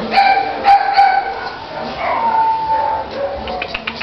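A pet animal making high, drawn-out whining calls, several in a row, the longest about two seconds in, followed by a quick run of faint clicks near the end.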